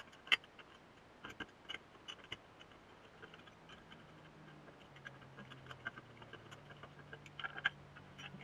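Irregular light metallic clicks and taps as the parts of a 1980 Yamaha SR500 muffler, its perforated inner tube among them, are handled and fitted together, with one sharper click just after the start.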